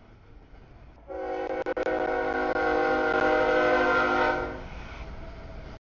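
Multi-chime air horn of the lead locomotive on CSX freight train X162, a southbound double-stack, sounding one long blast of several notes together as it approaches the grade crossing. The blast starts about a second in and lasts about three and a half seconds, then cuts off.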